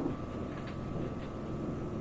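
Interior running noise of a Keio 8000 series electric train, heard inside one of its motor cars as it rolls slowly: a steady low rumble with a couple of faint clicks.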